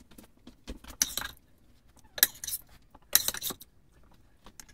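Metal serving spoon clinking and scraping against a ceramic serving dish and a steel pot while vegetables are spooned across, in a few short bursts with lighter ticks between.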